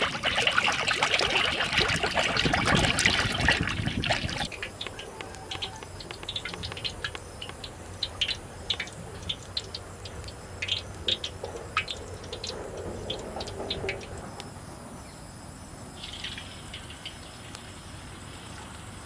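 Cooking oil poured from a plastic bottle into an iron kadai, splashing and gurgling for about four seconds before it stops. After that, only scattered light ticks.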